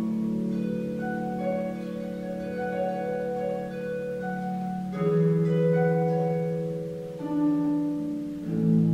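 Concert harp played solo: plucked notes ringing out over sustained low notes, with new, louder low notes struck about five seconds in and again near the end.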